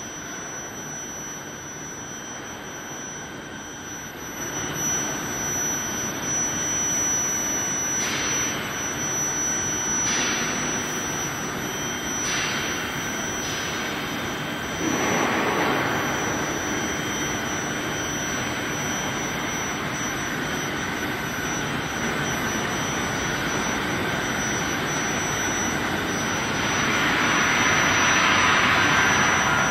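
Threaded-rebar induction heat-treatment line running: a broad rushing machine noise with a thin, steady high-pitched whine over it, swelling louder about halfway through and again near the end.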